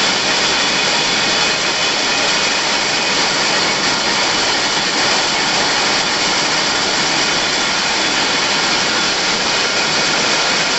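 Cotton-mill spinning frames running: a loud, steady mechanical din, strongest in the high range, with no let-up.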